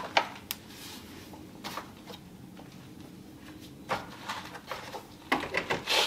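Light, scattered clicks and knocks of the plastic glove box and dash trim in a Jeep Wrangler TJ being handled, with a busier run of clattering knocks about five seconds in.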